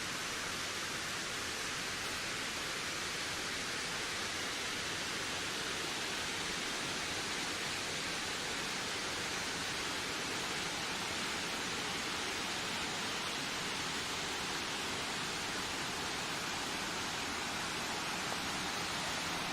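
Steady rushing wind, an even hiss that holds at one level without gusts or breaks.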